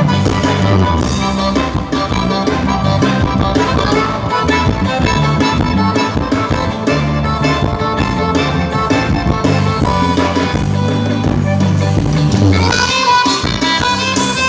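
Live band playing an instrumental passage, with drums and a strong bass line; about twelve and a half seconds in the bass drops out and higher melody instruments carry on.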